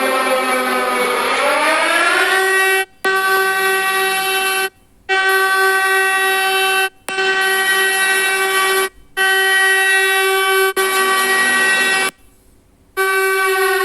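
A recreated siren sound: one loud, steady tone with many overtones. It dips in pitch and climbs back over the first two seconds, then holds level. It is broken by several abrupt cuts to near silence.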